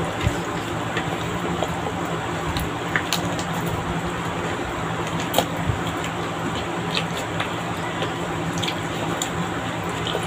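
Wet eating sounds: chewing and mouth noises from a meal of chicken adobo and rice, with scattered small clicks, over a steady low hum.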